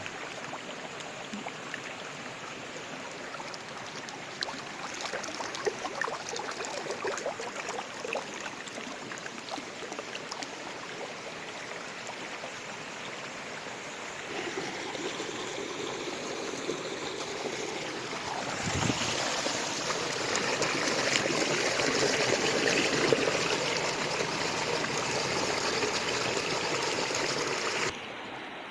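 A shallow rocky river running low, its water rushing and splashing over stones. It grows louder partway through and drops suddenly near the end.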